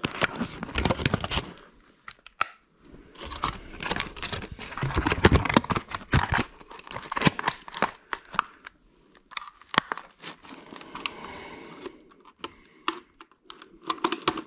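Thin black plastic sheet crinkling and rustling in the hands as it is worked around an electric motor's magnet rotor, the rotor's makeshift protective cover. It comes in irregular crackly bursts with brief pauses.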